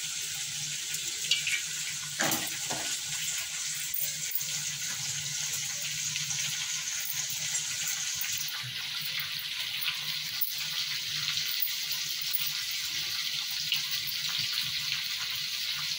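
Steady hiss of a freshly lit gas stove burner heating a pan of cooking oil, with a single light knock about two seconds in.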